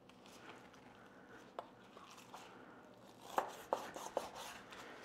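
Quiet handling of raw pork spare ribs on a work surface: a few light knocks and taps, most of them in the second half.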